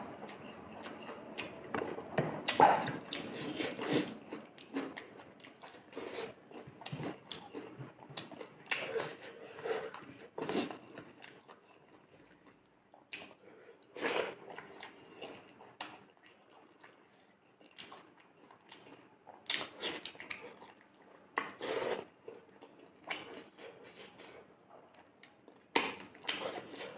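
Mouth sounds of a person eating rice and fish curry by hand: chewing and lip smacks, with fingers working the rice on the plate, an irregular run of short clicks.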